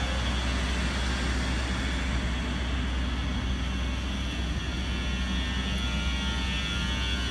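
WAG-12 twin-section electric freight locomotive rolling slowly past at close range: a steady low hum under an even rushing noise.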